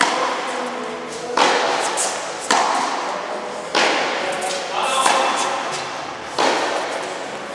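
Tennis rackets striking the ball in a baseline rally, about five sharp hits a little over a second apart, each echoing in a large metal-walled indoor hall.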